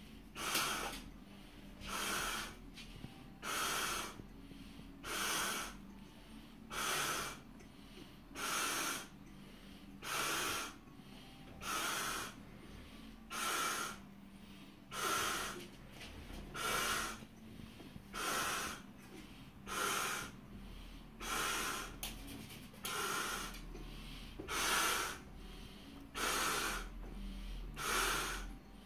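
A man inflating a large latex balloon by mouth, with a sharp, heavy breath roughly every second and a half in a steady rhythm.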